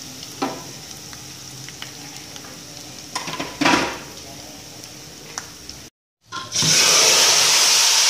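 A tadka of dry red chillies, green chillies, curry leaves and whole spices frying in hot oil in a karahi: a low steady sizzle with two brief clatters. After a cut about six seconds in, a much louder steady sizzle as the hot tempering oil meets the simmering kadhi.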